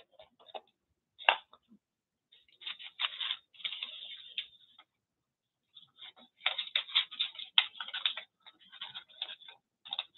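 Paper scraps rustling and crinkling as they are picked through and handled, in crackly bursts of a few seconds, with one sharp click about a second in.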